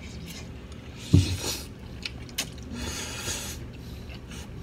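Spaghetti carbonara being slurped and eaten: two airy slurps of noodles, the first about a second in starting with a low bump, the second through the middle, with a few light clicks of forks on plates.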